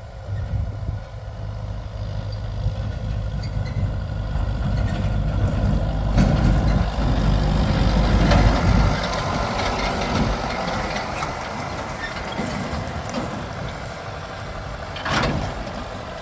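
Heavy farm diesel engine idling steadily, with a louder spell of engine noise building from about six seconds in and easing off after about ten seconds, and a short hiss near the end.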